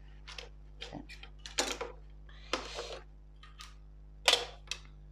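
Plastic drafting ruler and set square being slid over the drawing board and set down: a string of light clicks and scrapes, with the loudest knock about four seconds in.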